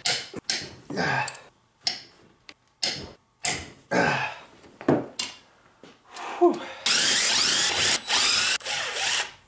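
A run of short scrapes and knocks from a screwdriver worked against an M5OD-R1 transmission case, then, about seven seconds in, a cordless drill spinning steadily for about two and a half seconds, driving out the fasteners of the transmission's front cover.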